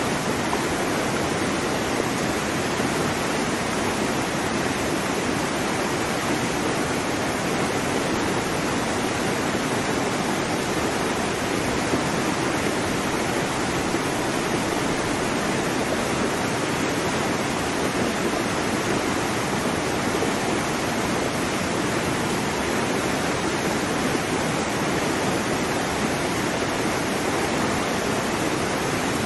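Steady, even rushing-water noise, like a waterfall or continuous surf, with no rise and fall of separate waves.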